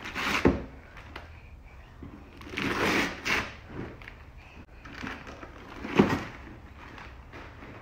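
Gift wrapping paper being ripped and rustled off a cardboard toy box in several bursts, with a couple of sharp knocks of the box, the loudest about six seconds in.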